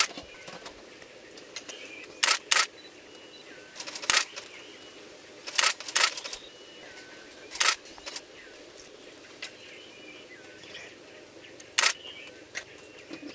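Camera shutter clicks, single and in quick pairs, at uneven intervals of one to several seconds. Faint bird chirps sound in the background.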